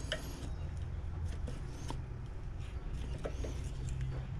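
Steady low background hum with a few faint, light clicks scattered through it.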